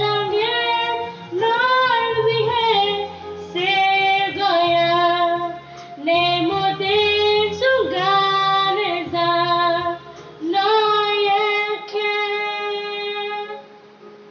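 A girl singing a slow Korean ballad into a handheld karaoke microphone over a backing track, in phrases with long held notes. The singing stops near the end.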